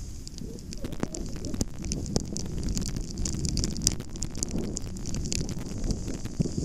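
Skiing downhill on packed snow: a continuous hiss and crackle of edges scraping the snow through turns, with a low rumble of wind buffeting the microphone.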